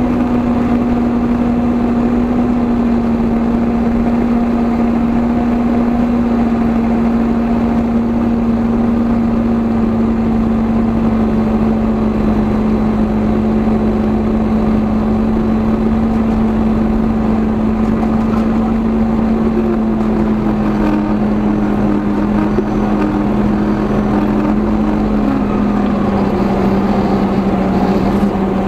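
Kubota M7 tractor's diesel engine and drivetrain running steadily, heard from underneath at the front axle. A steady whine slowly drops in pitch, falling a little faster near the end.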